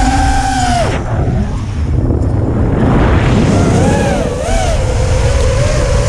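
FPV freestyle quadcopter's brushless motors whining, the pitch rising and falling with the throttle. About a second in the whine cuts away, as on a throttle cut, then returns near the middle and wavers. Under it runs a heavy rumble of wind and prop wash on the onboard camera's microphone.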